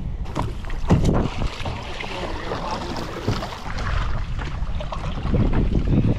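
Wind buffeting the microphone over water lapping against a kayak hull, with splashes from a kayak paddle.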